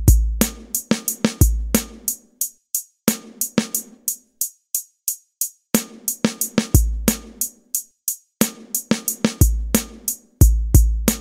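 Instrumental hip hop beat: deep kick drums, each followed by a long low bass note, with snare hits and steady hi-hat ticks about four a second. The beat stops for about a second midway, then comes back in.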